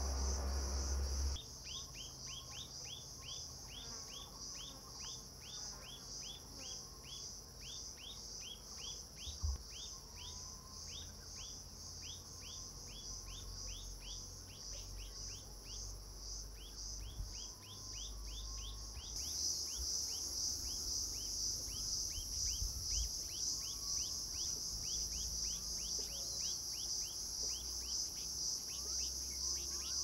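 A steady, high insect drone with a rapid series of short, falling chirps over it, about three a second; the drone grows louder about halfway through. Faint, soft bird notes come now and then.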